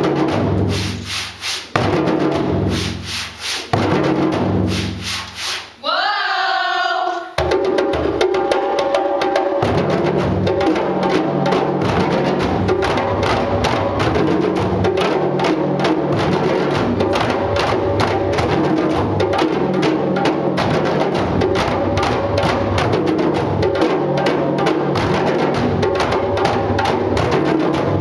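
A group of djembe drums played together: spaced groups of heavy unison strokes, a brief shouted call about six seconds in, then the whole group breaks into fast, dense, continuous drumming.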